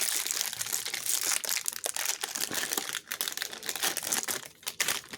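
Packaging crinkling and rustling as it is handled, an irregular run of crackles and small clicks.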